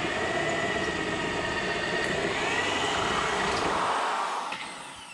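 Electric drill boring a hole with a 3/8-inch bit through the metal channel of a tarp arm: a steady motor whine with grinding cutting noise, easing off about four and a half seconds in.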